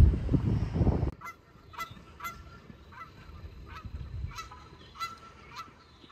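A goose honking over and over, short calls about two a second. A low rumble on the microphone, the loudest sound, fills the first second before the honks begin.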